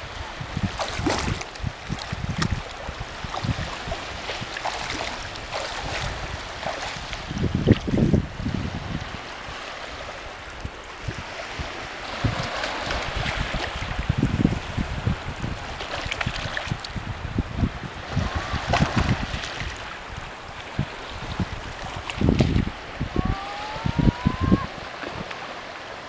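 Small waves lapping and splashing at the water's edge, with gusts of wind rumbling on the microphone. Two short rising whistles sound near the end.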